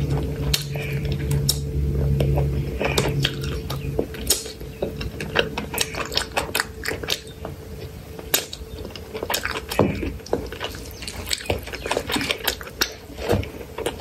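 Close-up wet chewing and lip-smacking of a person eating handfuls of rice and chicken curry, many quick sticky clicks and smacks. A low hum runs under it for the first few seconds and then stops.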